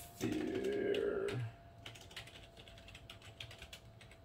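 Typing on a computer keyboard: scattered key clicks while a set name is looked up. A louder pitched sound lasting just over a second comes near the start.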